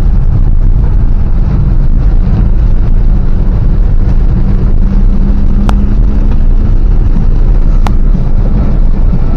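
Inside a Hyundai Avega driving through heavy rain: a loud, steady rumble of the car moving on the wet road, with rain on the body. Two sharp clicks come past the middle, about two seconds apart.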